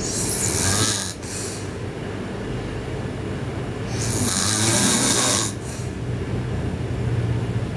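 A sleeping girl snoring loudly: two hissing breaths about four seconds apart, each over a low, steady rumble.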